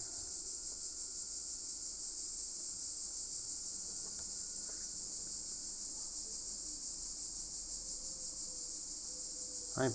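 Steady, high-pitched chirring of insects, with a few faint small taps about four and five seconds in.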